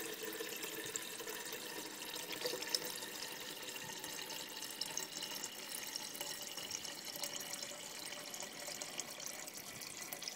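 Water running steadily from a kitchen tap into a stainless steel pitcher, filling it.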